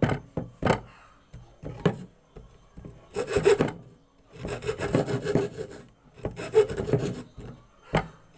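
Hacksaw cutting into a bamboo pole: runs of quick back-and-forth rasping strokes broken by short pauses, with one sharp stroke near the end.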